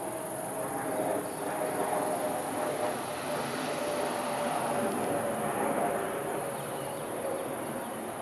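Steady chorus of insects: a high, continuous shrill over a dense buzzing hiss.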